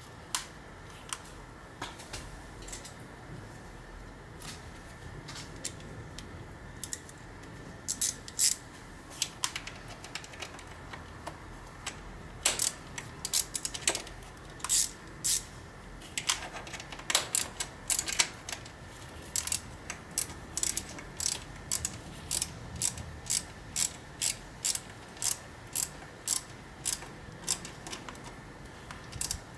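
Ratchet wrench clicking as it is swung back and forth on a throttle body bolt. At first come a few scattered clicks; from about halfway through there is a steady run of sharp clicks, about two a second.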